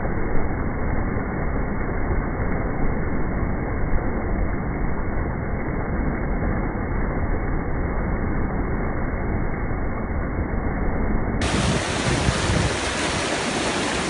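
Steady rushing noise of a waterfall, with wind buffeting the microphone.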